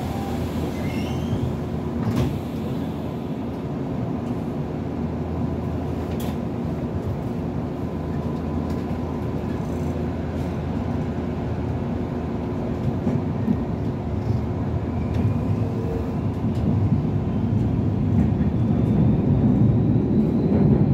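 Tokyu Toyoko Line electric commuter train running along the track, heard from inside its cab: a steady rumble of wheels and running gear. In the second half a faint whine rises in pitch, and the rumble grows louder and rougher toward the end.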